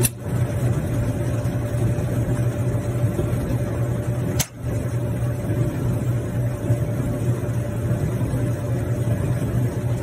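Maytag gas dryer just switched on and running: drive motor, drum and blower making a steady low hum and rumble. One short click about four and a half seconds in.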